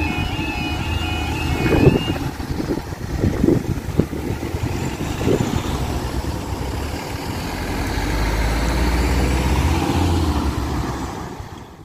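Automatic half barrier level crossing alarm sounding a repeating two-tone warble, which stops about two seconds in as the barriers rise. Cars then drive over the crossing, with a van passing close and loudest near the end.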